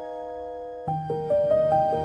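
Background music: a soft piano-like keyboard melody. A held chord fades, then a new phrase with a bass line comes in just under a second in.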